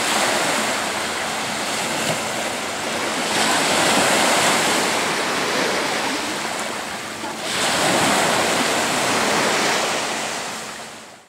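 Small ocean waves breaking and washing up a sandy beach, swelling and easing in surges a few seconds apart. The sound fades out near the end.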